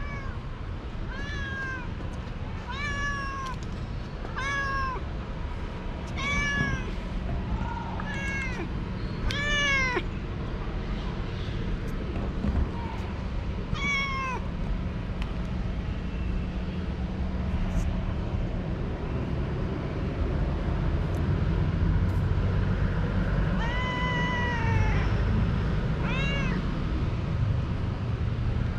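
Young orange tabby cat meowing repeatedly: about nine short, rising-and-falling meows, one every second or two at first, then one near the middle and two more near the end, over a steady low background rumble.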